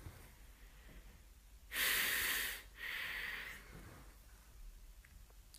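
A man sighing heavily twice, about two seconds in: a long breath out, then a second, softer one.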